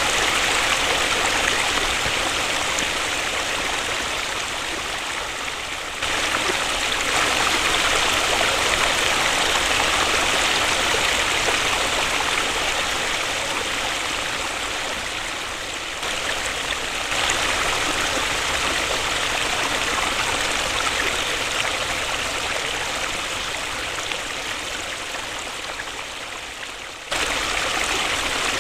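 Waterfall: a steady rush of falling water. Its level sags slowly and then jumps back up abruptly, about six, seventeen and twenty-seven seconds in.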